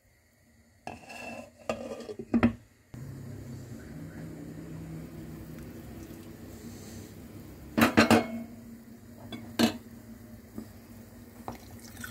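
Cookware clanking and clinking: a few clatters in the first three seconds, then, over a steady low hum, a sharp cluster of clanks about eight seconds in and a single clank a moment later.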